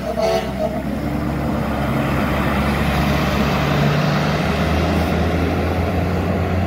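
A large motorhome's engine running as it drives off towing a Jeep, a steady low drone with road noise.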